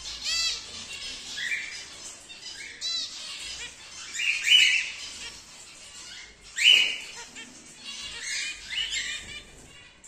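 Caged cockatiels and finches calling: a string of short chirps and squawks, one after another, with the loudest call about two-thirds of the way through.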